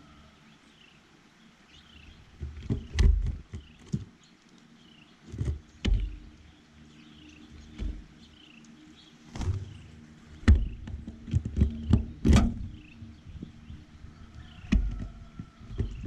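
Small birds at a feeder: faint, repeated short chirps behind a series of loud, irregular knocks and thumps close to the microphone, about eight of them after the first couple of seconds.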